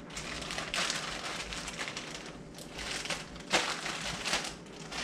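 Plastic tortilla bag crinkling in several short bursts of rustling as corn tortillas are pulled out of it and handled.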